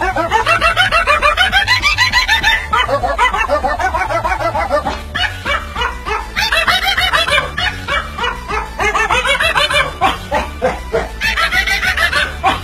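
A dog-bark song: a small white dog's short barks pitch-shifted into a melody, played over a steady beat and bass.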